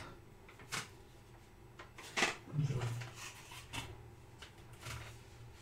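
A few faint, short rustles and clicks of paper and packaging being handled, with a brief low hummed voice in between.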